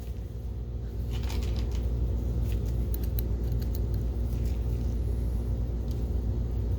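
Scattered light clicks and metallic taps of small screws and a driver being handled, over a steady low hum.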